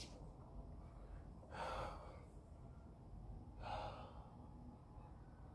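A man breathing heavily from exertion: two deep exhalations, about two seconds apart.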